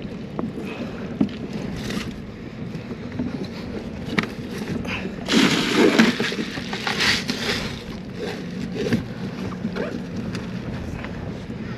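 Water sloshing and lapping against a kayak hull, with scattered knocks. About five seconds in comes a louder burst of rustling and handling noise lasting roughly two seconds, as a fish and a bag of ice are moved in the cockpit.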